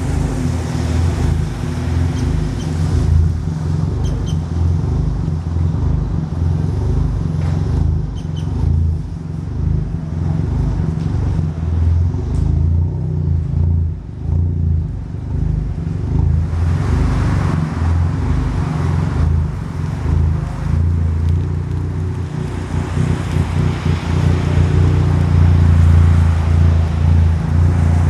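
Chevy Cruze's four-cylinder engine running steadily at low revs while the car drives, with a noisy road and tyre rush that swells about two-thirds of the way through.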